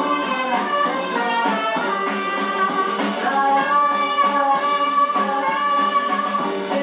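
Live French chanson played by a small band with an upright bass, with a woman singing into a microphone; several long notes are held near the middle.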